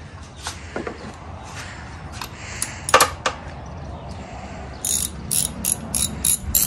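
Socket ratchet with a 13/16 spark plug socket clicking as a spark plug is worked out of an outboard engine. A few scattered clicks and knocks, with a loud one about halfway, then a run of sharp, even clicks about three a second near the end.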